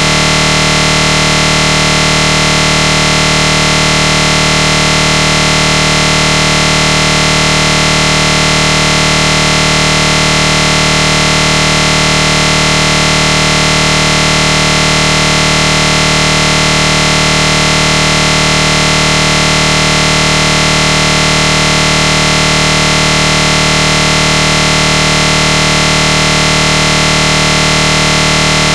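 A loud, perfectly steady electronic buzz made of many fixed tones, with no change at all. It is a recording or encoding glitch in the audio, not a sound from the race.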